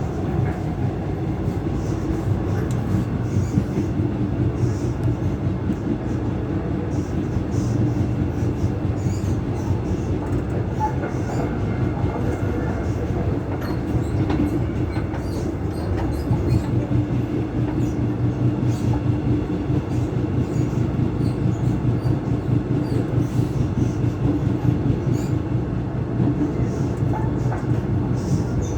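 Taiwan Railways EMU600 electric train running, heard from inside a trailer car: steady rail running noise with a steady hum over it. The hum is the motor car's traction-motor sound relayed through the trailer's in-car PA speakers, which were left switched on by mistake.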